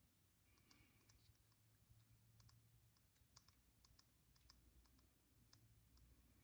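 Near silence with faint, irregular clicks of a sealant brush-cap applicator tapping against a metal freeze plug and its bottle as sealant is brushed on.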